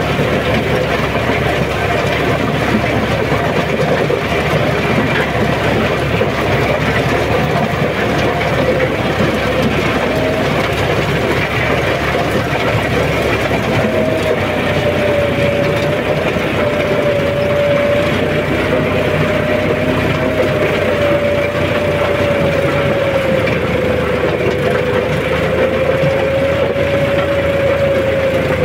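John Deere 5210 4x4 tractor engine running steadily under load while pulling a rotavator through the soil, with the tiller's churning mixed in. A steady whine runs over it and sinks slightly in pitch near the end.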